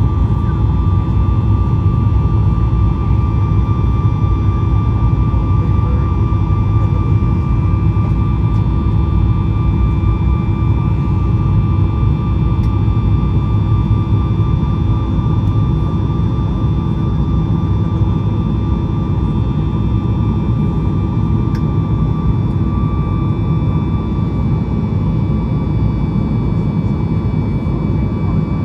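Steady jet engine noise heard inside the cabin of a Boeing 737-8 Max with CFM LEAP-1B engines: a loud, even low rumble with a steady whine over it.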